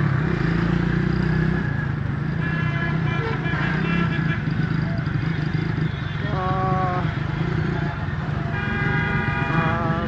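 Motorcycle engine running steadily in traffic, with vehicle horns honking: short repeated beeps about two and a half seconds in, then longer honks about six seconds in and again near the end.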